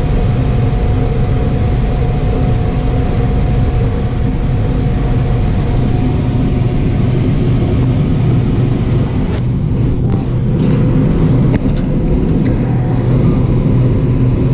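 John Deere combine running steadily under load while harvesting corn: a loud, even machine drone with a steady hum. A hiss in the upper range drops away about nine and a half seconds in.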